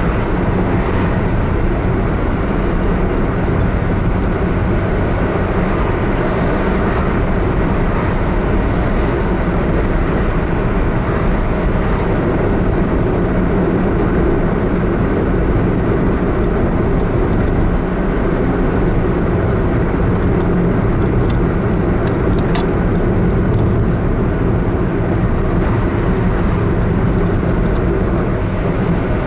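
Steady road, tyre and engine noise of a car driving, heard from inside the cabin. A few faint clicks come about three-quarters of the way in.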